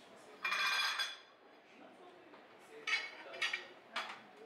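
Tableware being handled: a half-second scrape of dishes about half a second in, then several sharp clinks of plates and cutlery near the end.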